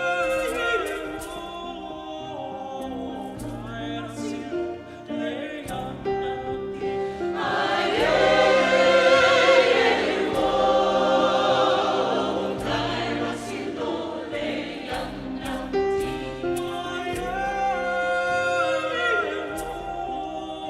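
A choir singing in several parts, the voices swelling loudest about eight seconds in and easing back after twelve, with short sharp percussive taps through the singing.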